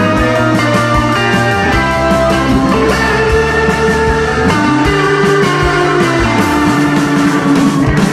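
Instrumental background music with a steady beat, sustained melody notes and a stepping bass line.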